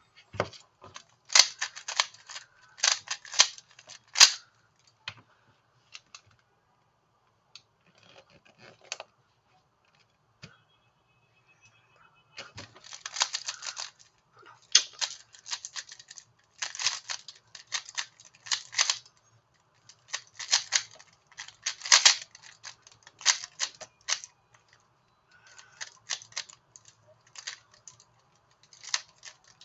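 Rapid, sharp plastic clicking in bursts of a second or two, repeated many times with short pauses between.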